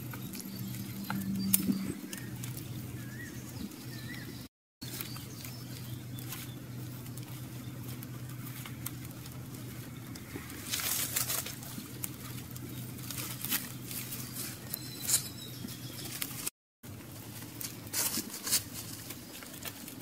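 Light, irregular crackling and rustling as hands pluck singed feathers from a grilled little grebe lying on a bed of leaves, over a steady low hum.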